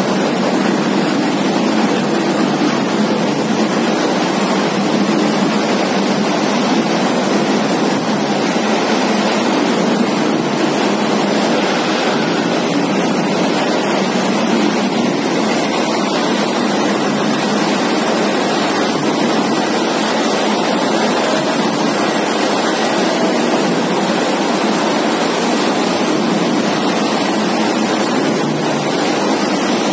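Steady machinery din of a running potato chips production line: an even, loud rushing noise with a faint high whine over it.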